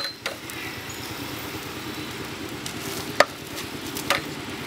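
Open wood fire burning steadily under a large cooking pot, with a sharp knock about three seconds in and another about a second later.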